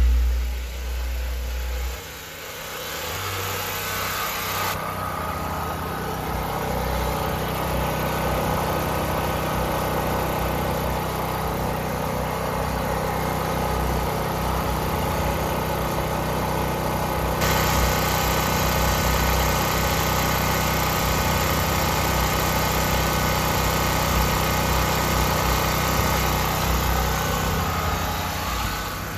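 Westinghouse WGen 5300 portable generator's engine running steadily while it powers a sound system. The first couple of seconds carry a heavy low rumble.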